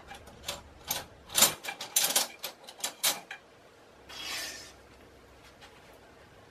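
A quick run of clicks and clatters from kitchen things being handled, loudest about a second and a half in, followed by a short hiss about four seconds in.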